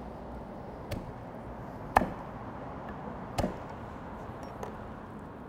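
Knife coming down on garlic cloves on a wooden cutting board, crushing them: three sharp knocks a second or so apart, the second loudest, then a fainter tap near the end.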